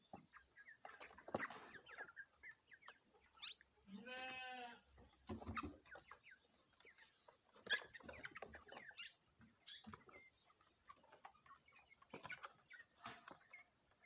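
Chickens clucking and calling in short scattered notes, with one longer wavering call about four seconds in.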